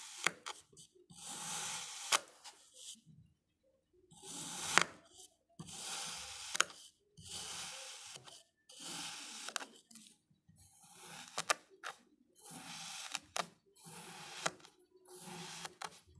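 A knife blade slicing through a packed block of kinetic sand, giving a gritty crunch with each cut. There are about nine cuts with short pauses between them, and several end in a sharp tap.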